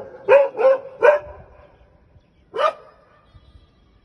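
Dog barking: three quick barks in a row, then one more bark a second and a half later.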